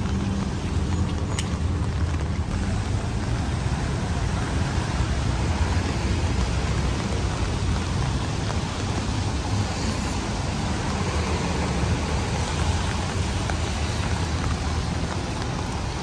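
Steady rain falling on a city street, over a constant low rumble.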